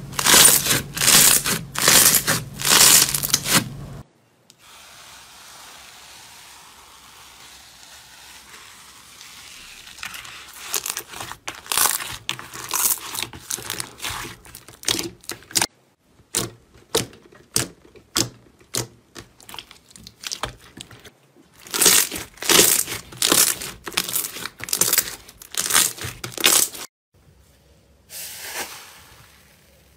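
Close-miked crackling and popping of slime being handled, in dense bursts. There is a quieter stretch of soft hiss, and a run of separate sharp clicks in the middle.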